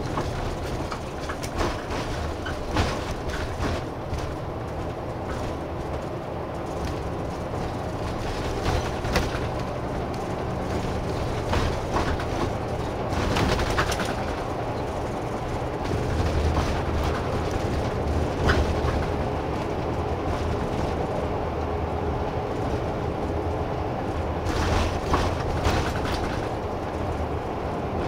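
Inside a route bus on the move: the diesel engine's steady low hum under road noise, swelling now and then, with scattered knocks and rattles from the cabin.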